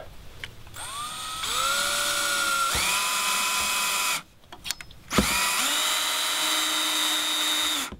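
Power drill driving a screw into the top of a wooden post: two runs of the motor, about three seconds and then about two and a half seconds, a second's pause between them, the whine shifting in pitch a few times.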